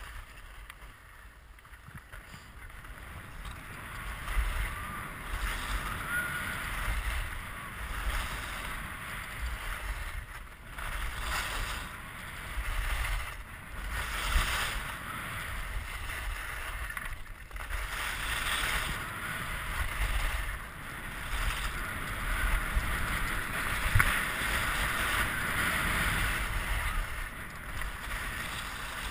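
Skis hissing and scraping over snow during a fast downhill run, with wind rushing over the microphone. The sound builds over the first few seconds, then swells and eases every second or two as the skier turns.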